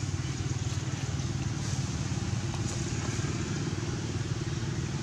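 An engine running steadily with a low, even rumble.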